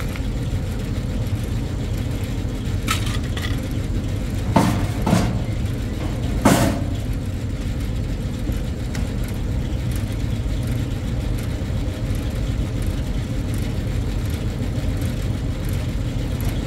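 Sheet-metal knocks and clanks as the hood of a rooftop upblast exhaust fan is handled and swung open on its hinge: a few short knocks a few seconds in, the loudest near the middle. Underneath is a steady low rumble.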